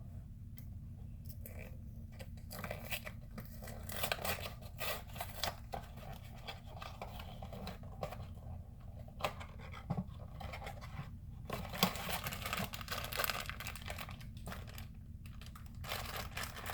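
Packaging being torn open and crinkled by hand in a run of irregular rustles and rips, over a steady low hum.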